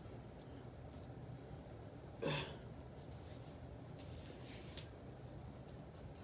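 Faint rustling of hands working through braided hair over low room hum, with one short vocal noise about two seconds in.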